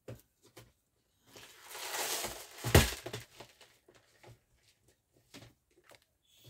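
Rustling and crinkling as craft materials are handled, building over about a second and a half with a sharp knock near the end of it, with scattered light clicks around it.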